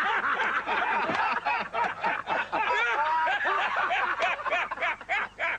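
Several people laughing together, a dense run of short overlapping laughs and snickers in reply to a punchline.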